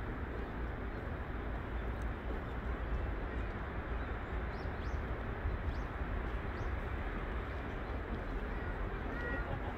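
Steady outdoor background noise with a heavy low rumble, and a few faint, short, high bird chirps, with two brief chirps near the end.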